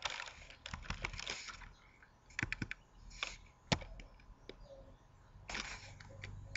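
Computer keyboard typing: a quick run of keystrokes in the first second and a half, then a few separate clicks spaced out over the next couple of seconds.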